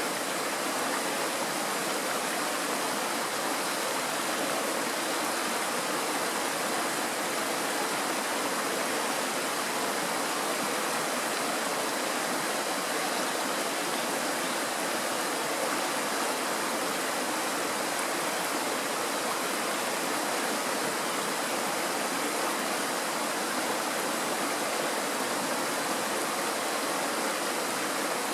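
Shallow mountain stream rushing over a stony bed and a small riffle, a steady, even sound of running water.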